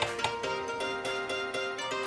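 Background music: an instrumental tune with quick, evenly spaced notes.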